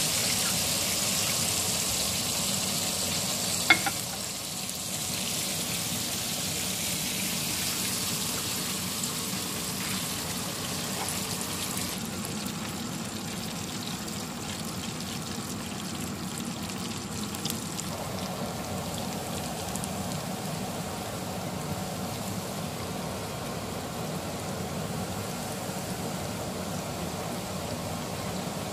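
Hot oil sizzling and bubbling steadily as breaded chicken drumsticks deep-fry in a pan, with a single sharp knock about four seconds in.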